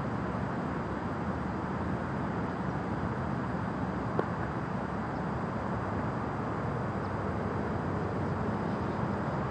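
Single sharp click of a putter striking a golf ball on a short tap-in putt, about four seconds in, over a steady low rumble of background noise.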